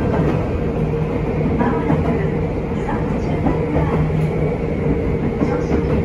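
Interior running noise of a Nagano Electric Railway 8500 series electric train in motion: a steady rumble of wheels on rail with an even low hum.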